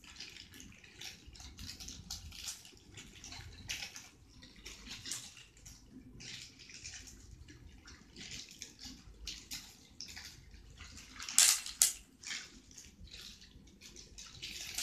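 Clear plastic wrapping crinkling and rustling as it is handled and torn open by hand, in irregular crackles with a louder burst about eleven seconds in.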